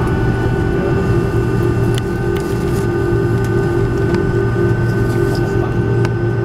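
Cabin noise of an Airbus A330 taxiing after landing: the engines at idle give a steady hum with a whine held on one pitch, and a few light clicks and rattles sound over it.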